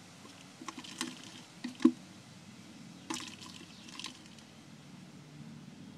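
Scattered light taps and scrapes of a stick against the inside of a container, the sharpest about two seconds in, over a faint steady low hum.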